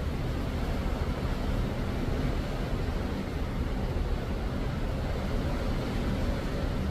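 Cruise ship under way at sea: a steady low rumble with a few faint steady low tones, under an even rushing wash of sea water.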